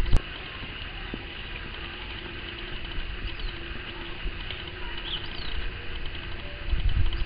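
Steady outdoor ambience with a faint low hum and a few short, high, falling bird chirps. It is preceded by a sudden cut-off click at the very start.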